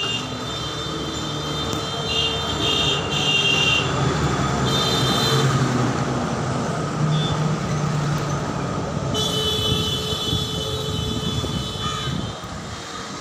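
Steady rumble of a passing vehicle, swelling over the first few seconds and dropping off near the end, with thin high whining tones coming and going.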